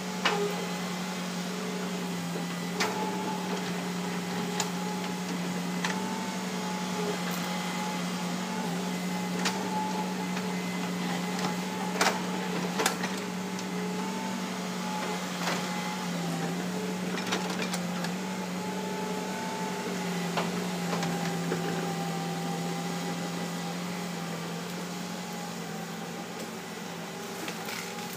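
Hitachi Zaxis 200-5G excavator's four-cylinder diesel engine and hydraulics running steadily under load as the bucket digs and pushes soil, the engine note dipping briefly now and then as the load changes. Scattered sharp knocks break in over the hum, loudest about twelve and thirteen seconds in.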